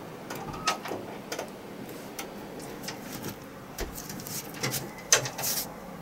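A door's handle and latch clicking as the door is opened, with scattered knocks and shuffling as someone comes into a small room.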